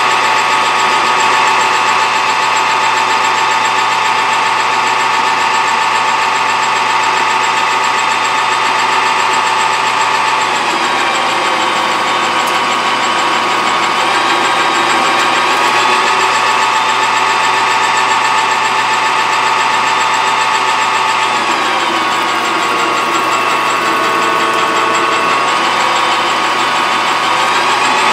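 Metal lathe running steadily while turning a part down to diameter, with a machine whine of several steady tones. The tones drop briefly about ten seconds in and again about twenty-one seconds in.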